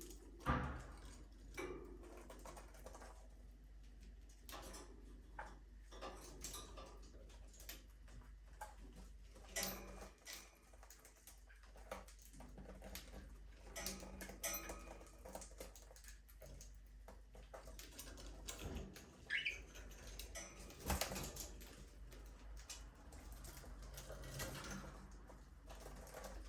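Budgerigars in a small aviary: a few faint, brief chirps among many small clicks, taps and scratches, over a low steady hum.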